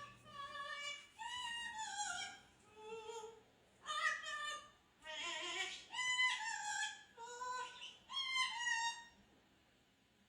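A pet talking bird giving a run of about nine high, pitched calls that slide up and down, each under a second long, stopping about nine seconds in.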